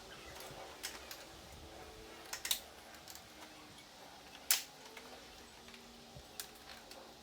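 A few light, sharp clicks and taps spaced irregularly over low room tone, the loudest about halfway through: plastic grille parts being handled and clipped into place.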